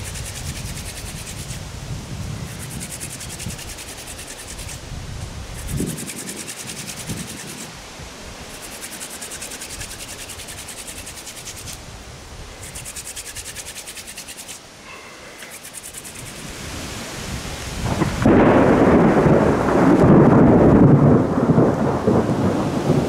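Hand-drill friction fire: a seep willow spindle spun between the palms rubs and hisses against a cottonwood fireboard in repeated strokes of a second or two each. About 18 s in, the louder rumble of thunder and rain from an incoming storm takes over.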